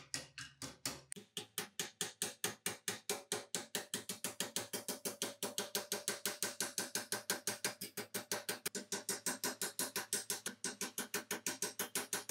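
Ball-peen hammer tapping rapidly and evenly on a rusty steel hand-saw blade laid on a bench vise's anvil, about seven taps a second, each tap leaving a short metallic ring.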